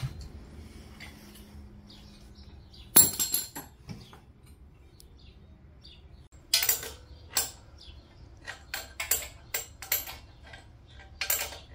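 Scattered sharp metallic clinks and knocks of metal tools and parts being handled: one loud clank about three seconds in, then a run of shorter clinks from about halfway through, over a faint low hum.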